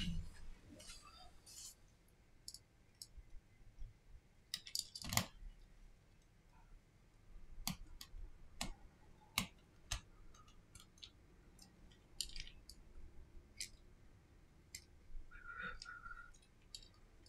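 Scattered small clicks and taps of a pry tool and fingers working on the open interior of a smartphone, pressing on its parts. Near the end there is a brief high, wavering chirp.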